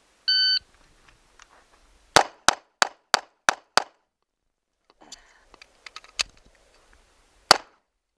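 A shot timer beeps once, then a SAR K2 9mm pistol fires a quick string of six shots about a third of a second apart. A couple more shots follow near the end.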